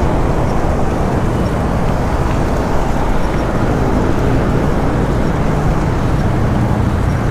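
Wind buffeting the microphone of a camera on a fast-moving bicycle: a loud, steady, low rush with no letup, with road traffic faintly beneath it.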